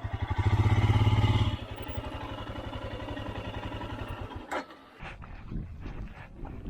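Motorcycle engine idling with even firing pulses, revved briefly near the start, then switched off about four and a half seconds in with a sharp click. Faint knocks and scrapes follow.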